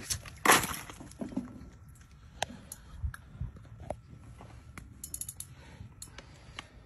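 Ice crunching and clicking at a drilled ice-fishing hole: a loud crunch about half a second in, then scattered light clicks and knocks.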